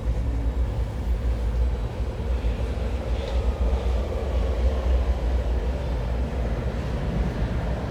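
Underground train running, a steady deep rumble with a constant hum and a faint whine that slowly falls in pitch.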